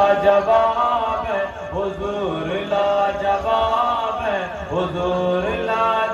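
A solo male voice singing a naat, an Urdu devotional poem in praise of the Prophet, into a microphone: long held notes that bend and slide in ornamented phrases.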